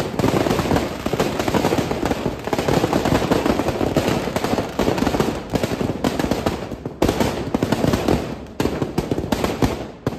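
Firecrackers packed inside a burning Ravan effigy going off in a rapid, continuous rattle of bangs, thinning into more separate bangs in the last few seconds.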